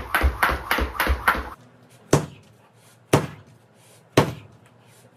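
Jump rope skipping on a rubber-matted floor: the rope and feet strike the floor about five times a second. After about a second and a half this gives way to single heavy thuds about once a second, each trailing off briefly.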